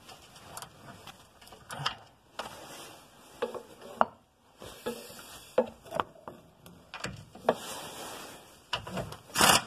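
Irregular clicks, knocks and scraping of metal as the underbody cover plates under a car are worked loose by hand.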